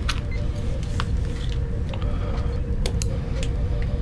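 Scalpel blade trimming a small hard kit part by hand, giving a few short sharp clicks and scrapes as it cuts, over a steady low background hum.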